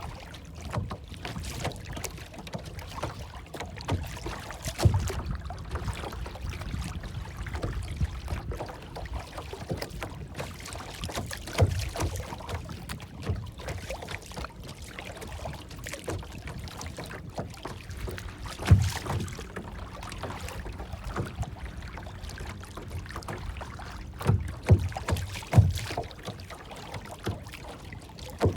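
Water lapping and sloshing in a steady wash, with a few short low knocks: one about 5 s in, one near 12 s, one near 19 s, and three close together near the end.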